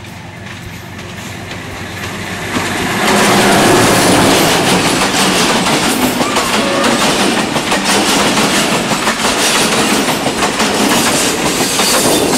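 Diesel-hauled passenger train approaching and passing close by. The locomotive's sound builds over the first three seconds, then the coaches run past loudly with a rapid clickety-clack of wheels over the rail joints.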